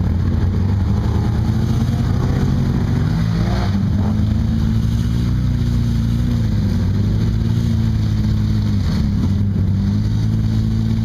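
Off-road vehicle engine running steadily under load while a Polaris RZR stuck in deep mud is pulled out on a tow strap; the engine pitch sags and rises again a couple of times.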